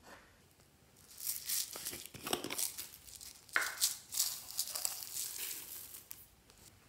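Sequins shaken out of a small jar onto slime in a glass dish: a dense, crackly patter of many small pieces falling and landing. It starts about a second in and goes on until near the end.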